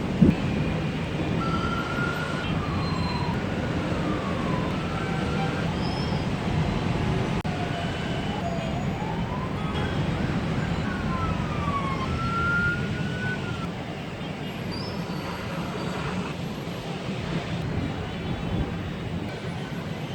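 Emergency-vehicle sirens wailing, their pitch sliding up and down, over a steady hum of city traffic. A short sharp knock comes just after the start.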